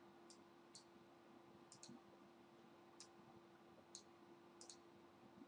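Faint computer mouse clicks, about seven in five seconds, two of them quick double-clicks, over a faint steady hum.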